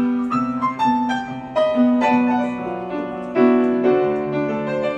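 Piano music: a melody of separate notes struck one after another.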